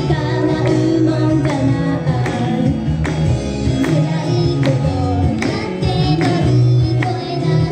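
Upbeat Japanese idol pop song: girls' voices singing over a backing track with a drum beat, played through the stage PA.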